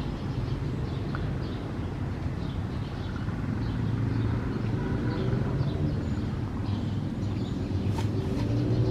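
Steady low rumble of road traffic, with a vehicle's engine hum building from about halfway through, and one short click near the end.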